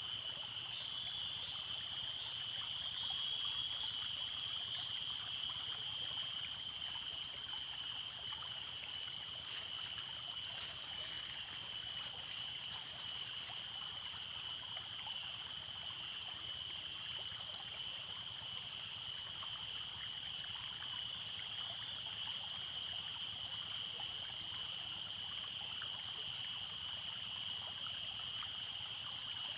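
Stream water running, with a steady high-pitched drone over it that is a little louder in the first few seconds.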